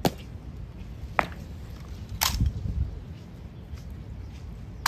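Sharp clicks from an honor guard's rifle drill, four in all, spaced a second or two apart, with a low thud just after the third.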